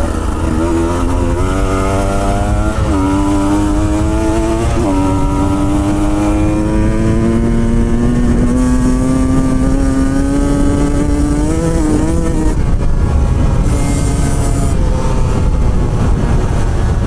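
Two-stroke motorcycle engine accelerating: its pitch climbs, drops twice at gear changes within the first five seconds, then rises slowly and steadily before the throttle is backed off about twelve seconds in. Wind and road rumble run underneath throughout.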